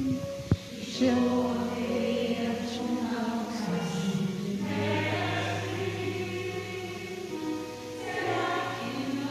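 Christian worship song playing: a choir singing over sustained chords, with a low note held from about halfway. A single sharp click sounds about half a second in.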